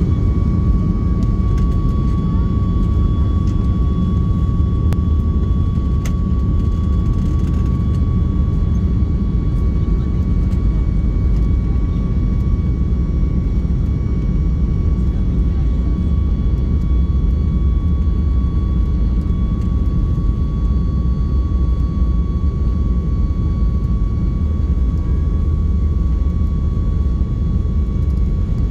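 Steady cabin noise inside a Boeing 737 jet airliner on the ground: a deep, even rumble of the engines and airflow with a thin, steady whine running over it.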